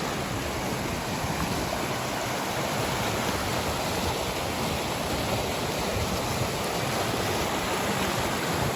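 Fast-flowing mountain river rushing steadily over its bed.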